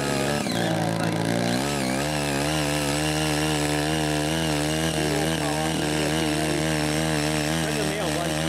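CHING YEE CY80 mini cultivator's small engine running under load as its rotary tines churn through soil, the engine note wavering up and down as it works.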